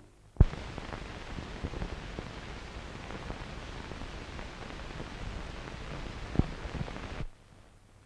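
Steady hiss with scattered clicks and pops from an old film soundtrack, opening with a loud pop and dropping out about a second before the end.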